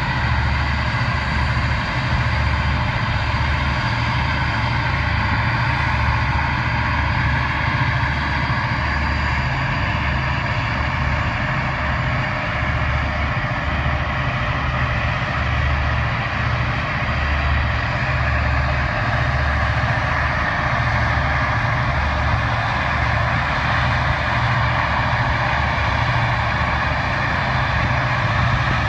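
Towboat's diesel engines running with a steady drone as it pushes barges upriver, with wind buffeting the microphone in a low, uneven rumble.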